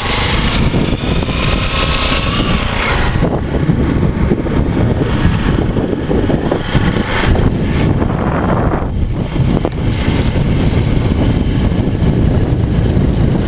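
Motorcycle running while being ridden, its engine noise mixed with heavy wind rumble on the microphone.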